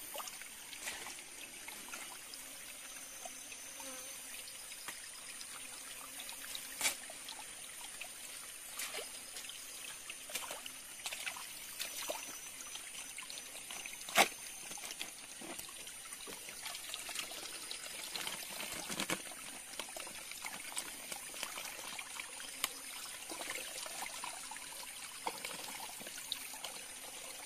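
Water trickling steadily, with a few sharp clicks or knocks scattered through; the loudest comes about halfway.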